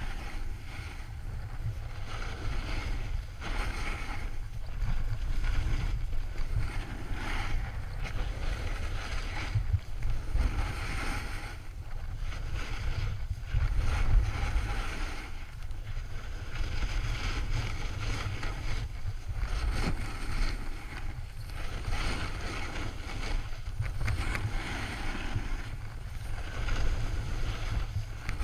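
Wind buffeting an action camera's microphone as a heavy low rumble, with snow hissing and scraping under a rider's edges on a groomed slope, swelling and fading with each turn.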